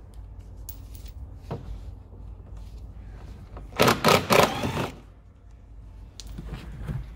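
Cordless screwdriver with a T25 Torx bit running in a few short bursts for about a second, about four seconds in, undoing an arch-liner bolt. Light clicks and handling knocks from the plastic liner around it.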